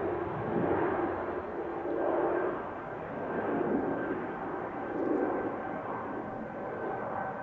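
Airbus A220-300's Pratt & Whitney PW1500G geared turbofans at takeoff thrust during the takeoff roll. A rushing jet noise with a steady high whine runs through it, swelling and fading in waves about every second and a half.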